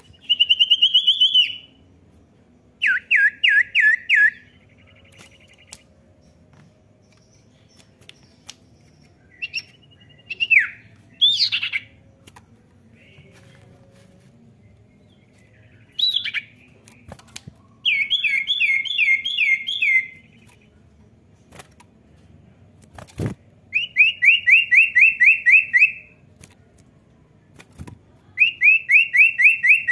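Common iora (cipoh) singing: five bursts of rapid, evenly repeated chattering notes, each about one to two seconds long, with a few single rising whistles in between. A sharp knock comes a little after the middle.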